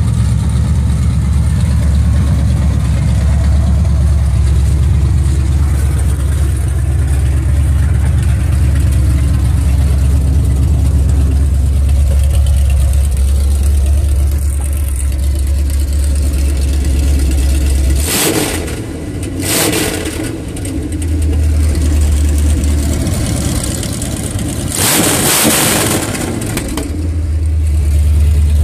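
1977 Chevy mud truck's engine idling steadily with a low, even sound, then revved in two quick blips about two-thirds of the way in and once more, a little longer, a few seconds before the end, settling back to idle each time.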